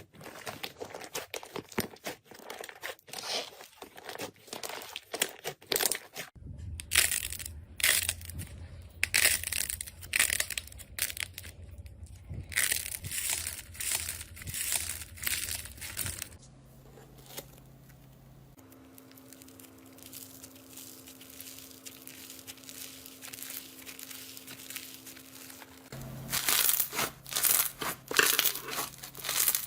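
Slime being squeezed, pressed and pulled by hand, making dense runs of small sharp crackles and crinkling squelches. The crackling drops away for several seconds past the middle to a faint handling sound with a low hum, then comes back loudly near the end.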